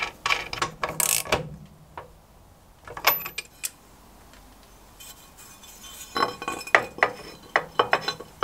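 Metal parts clinking and knocking as they are handled during hand assembly of a lathe power feed: a few clicks at first, a quiet stretch about halfway through, then a busy run of clinks near the end as a steel plate is set against the lathe bed.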